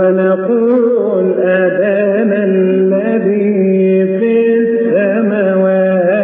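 Coptic liturgical chant: a voice singing a long melismatic line without clear words over a steady low drone.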